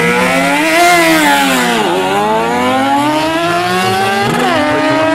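Drag-racing motorcycles launching and accelerating hard. The engine pitch climbs, falls back briefly about two seconds in, climbs again and drops sharply at a gear change about four and a half seconds in before rising once more.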